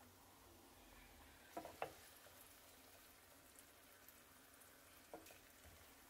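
Very faint sizzle of oil shallow-frying folded corn tortilla tacos in a skillet on low heat. A few soft knocks of wooden spatulas against the pan as the tacos are moved, two close together about a second and a half in and one near the end.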